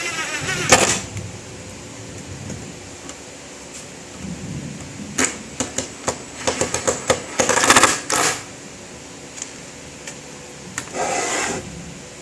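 Screws being driven with a screwdriver to fasten a motor mount to wood: a run of sharp clicks and knocks, thickest from about five to eight seconds in, with two louder bursts under a second long, near the start and about eleven seconds in.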